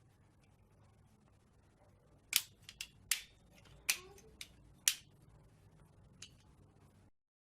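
Sharp plastic-and-metal clicks and knocks, about six in two and a half seconds and one faint one later, as a CPU cooler fan is fitted back onto its heat sink.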